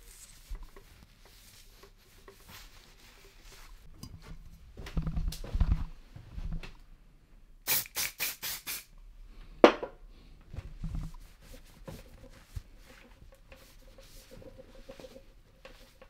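A cloth rubbing and wiping over a mountain bike's frame and handlebar, with light handling knocks. About eight seconds in, a spray can of frame polish gives about five quick squirts, followed by one sharp, falling squeak.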